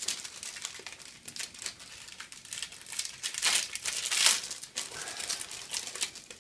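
Crinkling of a thin clear plastic bag being handled and opened to take out a screw-in close-up lens filter, in irregular crackles, loudest about three and a half to four and a half seconds in.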